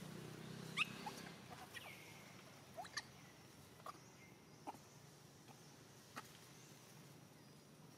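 Faint, short, high-pitched animal squeaks, about eight of them at irregular intervals, some sliding down in pitch, over a faint low hum.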